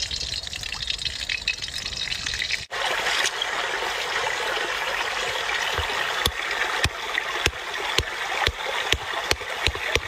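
Stream water rushing steadily, with sharp knocks from about six seconds in, roughly two a second, as a stone pounds food on a flat rock. Before that, for the first few seconds, oil pouring into a hot wok, ending abruptly at a cut.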